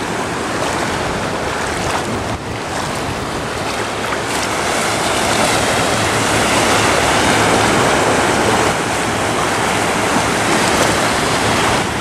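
Small surf breaking and washing in at the water's edge, with wind across the microphone.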